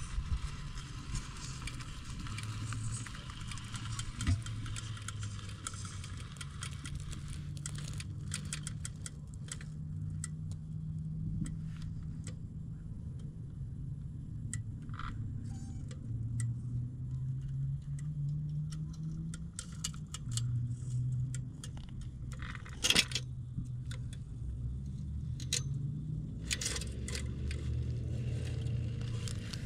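Radio-controlled rock crawler's electric motor and VFD Twin transmission whining at crawling speed, the pitch stepping up and down as the throttle changes. Clicks and rattles of the metal chassis and tyres on rock, with one louder knock past the middle.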